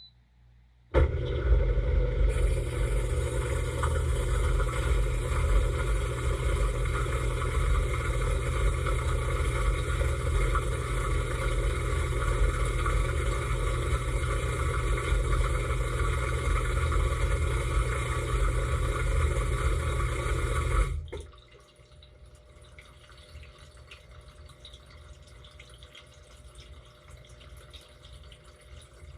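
Dishwasher wash pump starting about a second in, spraying water with a loud steady rush over a low motor hum, heard from inside the tub. After about twenty seconds it stops abruptly, leaving water dripping and trickling.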